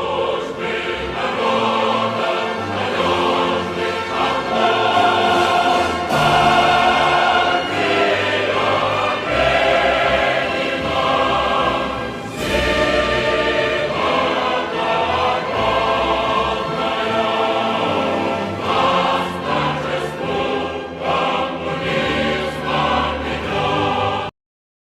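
Choral music, a choir singing sustained chords, that cuts off suddenly shortly before the end.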